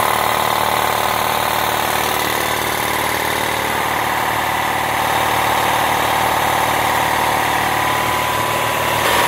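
DeWalt 60-gallon vertical stationary air compressor (model DXCMLA3706056) running steadily: its oil-lubricated, belt-driven pump and 3.7 hp electric motor working at an even, unchanging pace.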